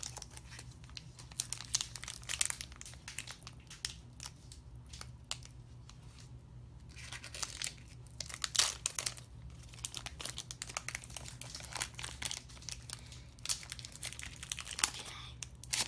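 Foil wrapper of a Pokémon card booster pack crinkling and tearing as it is opened by hand, in several spells of crackling.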